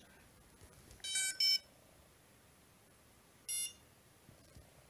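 Tarot 680 octocopter's ESCs beeping through the motors during an ESC calibration that is failing: a quick two-tone pair, lower then higher, about a second in, then a single higher beep near the end, repeating every couple of seconds.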